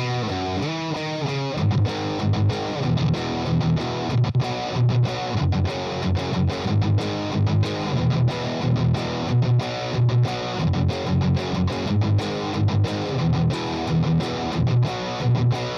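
Soloking SJT-200 electric guitar played through distortion: ringing chords, then from about a second and a half in a low, choppy riff of short notes with brief gaps between them.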